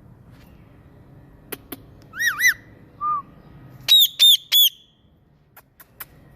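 A parrot whistling: two quick arched whistles about two seconds in, a short lower note, then three loud, higher chirps in quick succession, with a few sharp clicks before and after.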